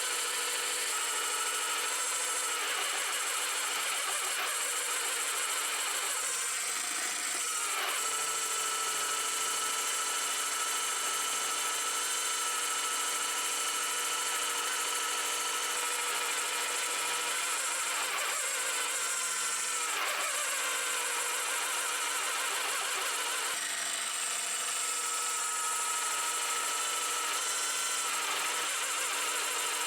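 Small electric power tool, such as a drill or rotary tool, running steadily with a high whine. Its pitch dips briefly about seven seconds in and again near twenty seconds, as if slowed by load.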